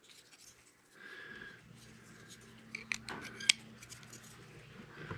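Metal clicks from a bearing-pivot flipper pocket knife with a liner lock as it is worked by hand: several light ticks and then two sharp snaps about half a second apart, the second the loudest, as the blade flips open and locks.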